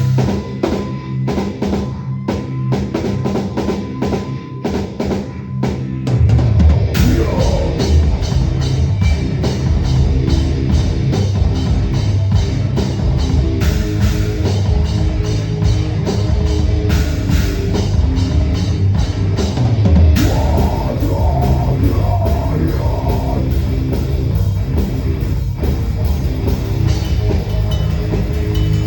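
Heavy metal band playing live, the drum kit to the fore, as heard from a drum cam. Evenly spaced single hits for about the first six seconds, then the full band comes in with dense, driving drumming.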